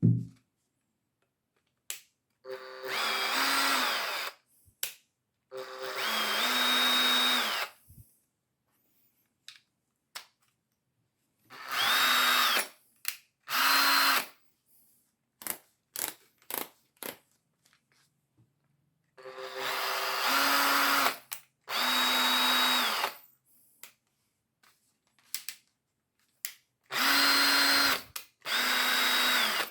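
Makita BHP453 18V cordless drill driver running in short bursts of one to two seconds, mostly in pairs, each with a whine that rises as the motor spins up and falls as it winds down. Short clicks come between the runs. This is the function test of the drill after its rebuild with a new motor rotor and a cleaned, regreased gearbox.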